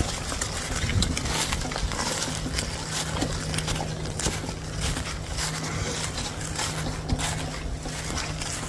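Footsteps crunching and rustling through dry leaves and brush on a rough woodland path, irregular and continuous, with a steady low hum underneath.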